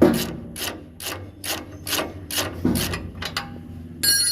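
Socket ratchet wrench clicking in steady strokes, about three a second, while a 19 mm bolt on a front shock absorber is worked loose. A short ringing metallic clink comes near the end.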